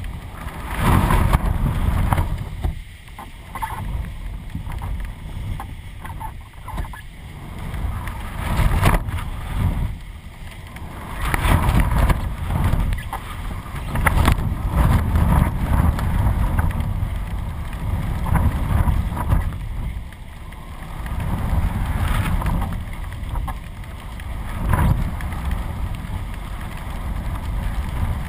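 Strong, gusty wind buffeting the microphone of a camera mounted on a flying kite, rising and falling in surges every few seconds.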